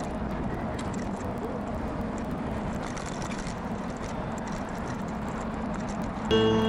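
Steady street traffic and road noise on a camera moving along a city street, with a low hum underneath. Music starts near the end.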